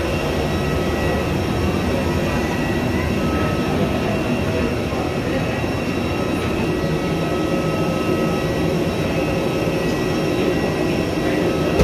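A steady rushing drone with faint, steady high whines: the machinery noise of a parked airliner and its jet bridge, air-conditioning and auxiliary power running, heard while walking to the aircraft door.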